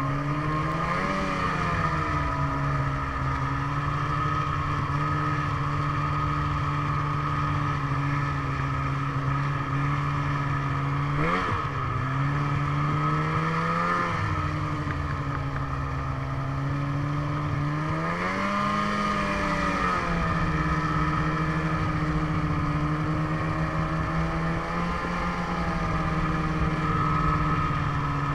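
Snowmobile engine running steadily under way, its pitch rising and falling briefly with the throttle a few times: about a second in, near 11 and 14 seconds, around 19 seconds and again near 25 seconds.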